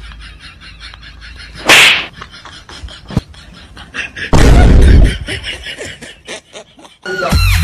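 A sharp, loud smack-like hit about two seconds in, then a heavier half-second thud with a deep boom about four and a half seconds in, both likely comedy sound effects edited in. Music with a beat starts near the end.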